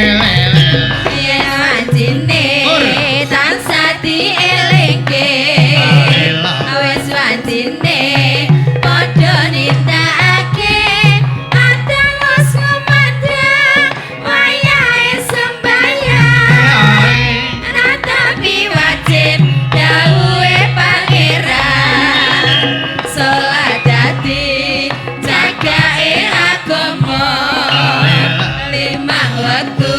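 Javanese gamelan music played continuously, with hand drumming keeping a pulsing beat under a wavering melody line.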